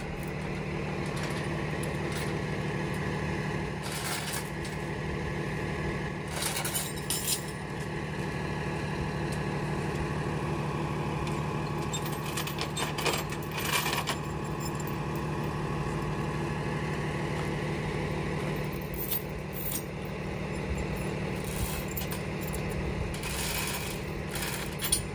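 Steel chain clinking and rattling at intervals as it is wrapped around a forklift's bent mast and fastened tight to keep the mast from dropping. Under it runs the steady low hum of the idling tow truck engine.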